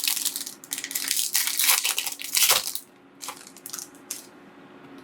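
Yu-Gi-Oh booster pack wrapper being torn open and crinkled: a run of rustling and tearing noises for nearly three seconds, then a few short crinkles.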